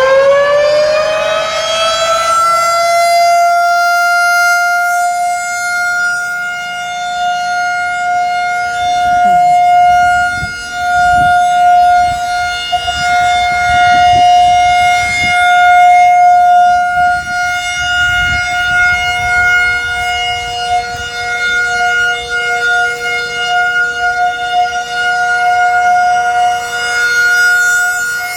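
Federal Signal 2001-SRN rotating outdoor warning siren finishing its wind-up, its pitch rising over the first two seconds, then holding a steady alert tone. The tone swells and fades in loudness as the rotating head sweeps past.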